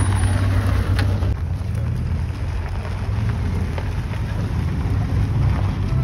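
Low, steady rumble of a vehicle engine running, with a wash of noise over it.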